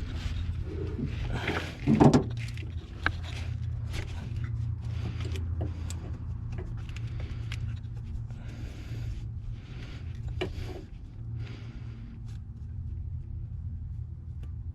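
Hands fumbling at a plastic wiring-harness plug and its wires in a car's engine bay, trying to work it loose: scattered clicks, taps and scrapes over a steady low hum, with a louder rustle about two seconds in.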